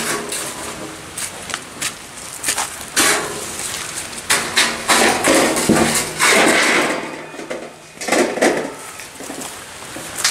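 A thin corrugated steel roofing sheet being handled and pushed by hand: repeated clanks and rattles of flexing metal, with louder stretches of scraping and wobbling noise.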